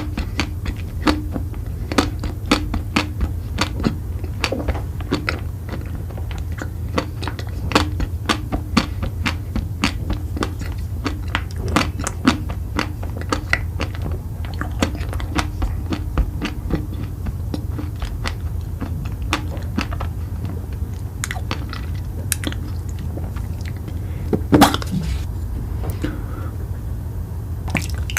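Close-miked chewing of crunchy food: rapid sharp crunches, several a second, thinning out in the last third, with one louder crunch near the end, over a steady low hum.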